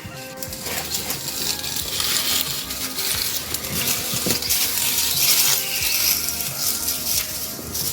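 Loud, close crackling and rustling full of small clicks, over soft background music; it cuts off suddenly near the end.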